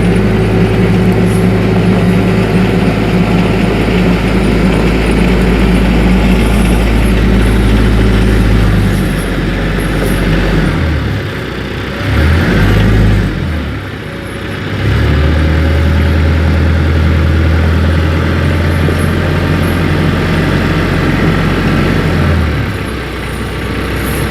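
TYM 474 compact tractor's diesel engine running steadily under way. About ten seconds in, the engine note dips and changes for a few seconds, then holds steady again, and falls off near the end.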